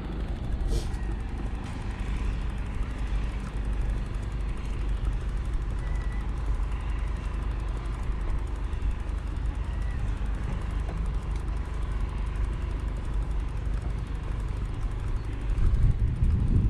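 Steady low rumble of wind and road noise picked up while riding a bicycle, swelling louder near the end.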